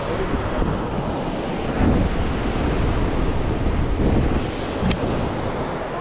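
Wind gusting on the microphone over the steady rush of ocean surf breaking on rocks.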